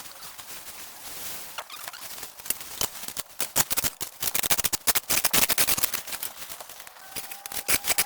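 Rapid, irregular clicks and snaps, like hand tools or feet breaking through dry brush and debris. Near the end a long, drawn-out tone with overtones starts up.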